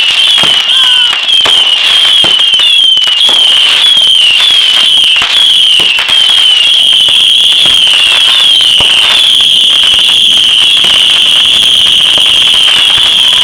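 Fireworks: a loud, continuous high-pitched whistle that wavers in pitch about three times a second, like a whistling or screaming firework, with crackling pops and bangs throughout.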